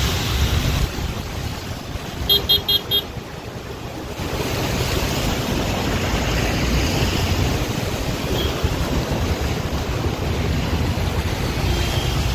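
Traffic on a flooded road: a car horn gives four quick short toots about two seconds in. From about four seconds a steady rushing, sloshing noise of vehicles churning through the floodwater takes over.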